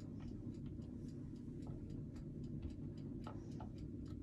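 A fork pricking tart dough in a fluted metal tart tin, its tines making light, irregular clicks several times a second: the pastry is being docked so it won't puff up when baked. A steady low hum runs underneath.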